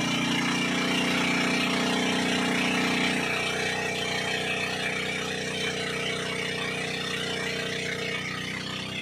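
Engine of a motorized outrigger boat (bangka) running steadily under way. Its tone changes about three seconds in and again near the end.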